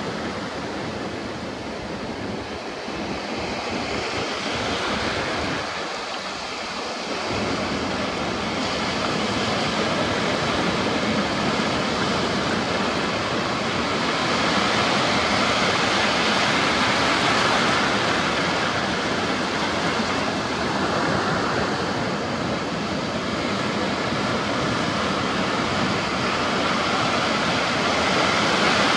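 Rough sea surf: breaking waves and white water making a steady rushing noise.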